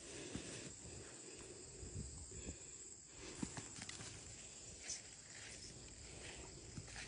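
Faint footsteps with scattered light knocks and rustles over a steady outdoor hiss.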